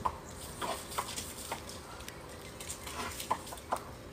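A dog giving a string of short, soft whining yips, spaced irregularly, as it waits eagerly in front of its handler.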